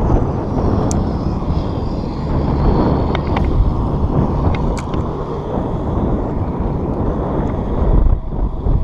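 Wind buffeting the microphone: a steady, loud low rumble with no clear pitch.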